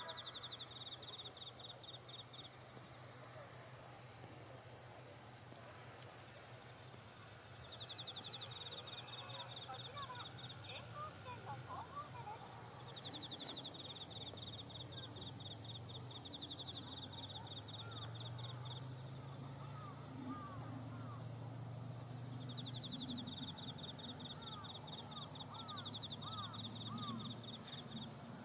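Outdoor rural ambience: an insect trilling fast in repeated bouts of a few seconds, birds chirping now and then, and a faint low rumble from a distant electric train.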